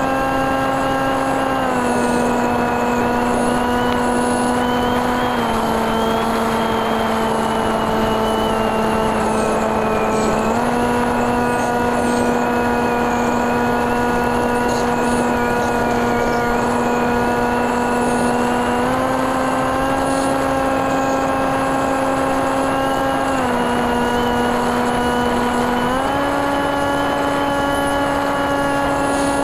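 The TekSumo FPV plane's NTM 28-26 brushless motor and 8x6 propeller are running in flight, heard from the onboard camera as a steady buzzing whine over a constant rush of wind. The pitch steps down twice in the first few seconds, climbs back, and then dips and recovers again near the end as the throttle changes.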